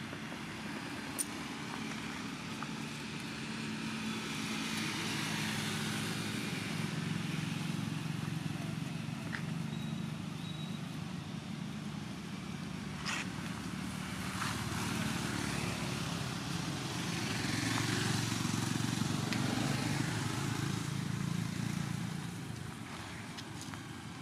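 Low engine drone of passing motor vehicles that swells louder twice and fades, with a few faint clicks.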